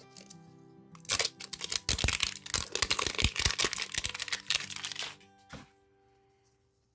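Crinkly packaging of a surprise ball being torn open and crumpled by hand: a dense run of crackling and tearing from about a second in until about five seconds, over soft background music that fades out near the end.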